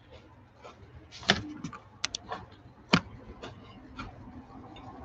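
A scattering of light clicks and knocks, with two louder knocks about a second and three seconds in.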